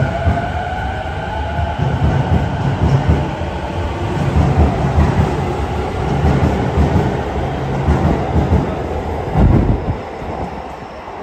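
Toei Shinjuku Line electric train pulling out of an underground station, its cars running past with a rhythmic low rumble and rattle. A heavier rumble comes about nine seconds in, then the sound fades as the last car leaves.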